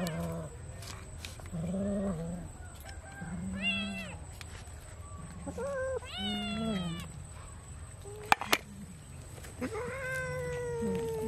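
Several domestic cats yowling and meowing as they jostle over a bowl of raw fish: short low calls every second or two, a few higher calls that rise and fall, and one long drawn-out yowl near the end. Two sharp clicks come a little past the middle.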